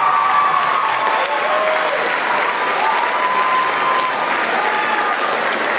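Audience applauding steadily, with voices calling out over the clapping.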